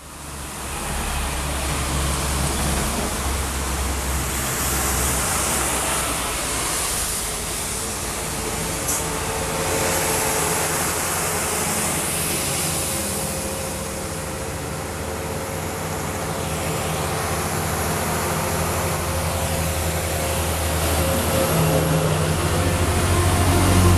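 Tractor-trailer diesel engine running as the truck approaches, with tyre noise from the wet road. The sound builds and is loudest near the end, as a truck passes close by.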